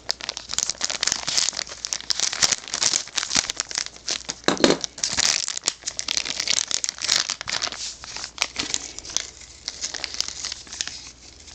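Packaging of a pet-store hopper box being worked open by hand: continuous crinkling and tearing with many small crackles, and one louder knock a little before the middle.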